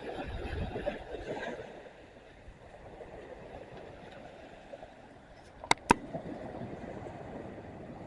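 Sea waves washing on the beach, with a louder surge of surf in the first second or two. About six seconds in come two sharp clicks in quick succession.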